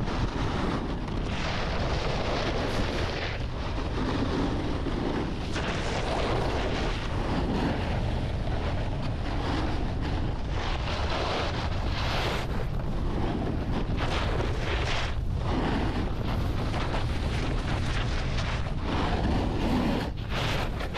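Wind rushing over the microphone of a snowboarder riding down a ski piste, with the board's edges scraping the snow in swells that come and go every second or two through the turns.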